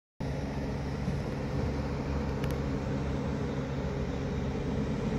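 Steady road traffic noise: an even low rumble with a fainter hiss of tyres above it.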